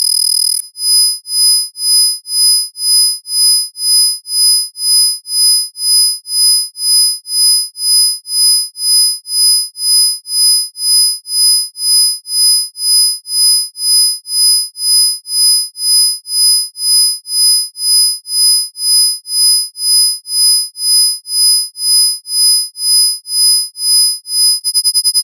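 Electronic isochronic sine tones: pure high whistles, the loudest near 5 kHz and 10 kHz, with fainter tones below them. The tones pulse in volume about one and a half times a second, then change to a faster flutter near the end.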